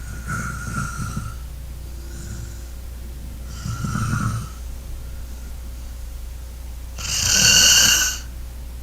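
A person snoring: three snores roughly three and a half seconds apart, the last one the loudest, over a steady low hum.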